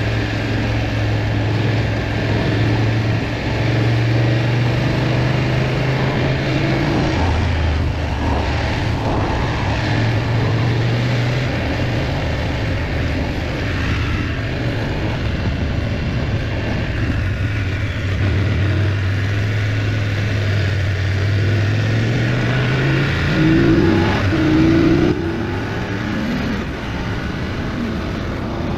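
BMW GS motorcycle engine running at steady road speed under wind noise. Near the end the revs rise briefly, then drop back.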